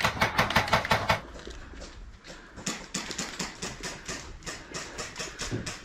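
Airsoft electric gun (AEG) firing: a quick string of sharp shots in the first second, then steady shots about four a second until near the end.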